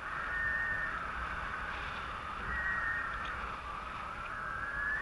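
A continuous electronic tone from a paragliding variometer, slowly rising and falling in pitch, over steady wind rush on the microphone.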